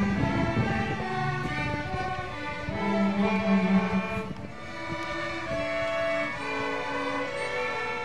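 Children's string orchestra of violins and cellos playing a piece together: held bowed notes over a lower cello line, which thins out about halfway through.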